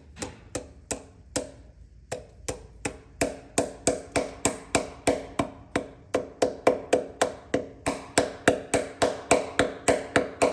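Hammer tapping a stud remover tool down onto a heated exhaust manifold stud: a steady run of sharp metal-on-metal strikes, about three a second, each with a short ring. The blows grow harder about three seconds in.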